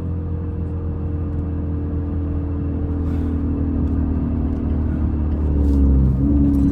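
Car engine running at a steady cruise, heard from inside the cabin as a low, even rumble while the car is driven gently to cool down. The engine note sags slightly, then climbs and grows a little louder about six seconds in.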